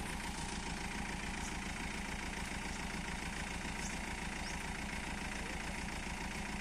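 Engine of a truck-mounted borewell rig running steadily at a fast, even low pulse while it powers the mast that lifts the pipe and submersible pump out of the bore.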